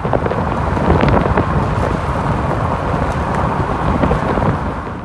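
Wind buffeting the microphone over the steady rumble of a car driving along a road.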